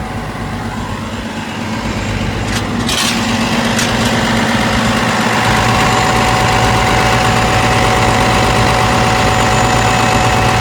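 Komatsu PC490LC-11 excavator's diesel engine running steadily at idle, getting louder over the first few seconds, with a few short clicks and knocks around three seconds in. It runs clean, with no abnormal noises.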